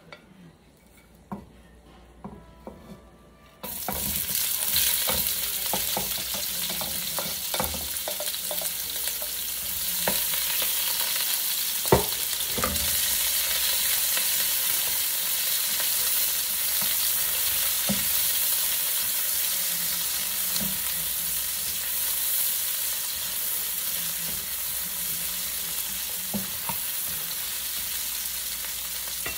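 Sliced onions dropped into a hot wok start sizzling suddenly about four seconds in, and keep frying steadily while a slotted spatula scrapes and taps them around the pan; one sharper knock of the spatula about twelve seconds in.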